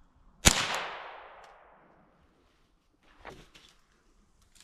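A single gunshot that echoes and fades over about a second and a half, followed by a few faint clicks and a second sharp shot right at the end.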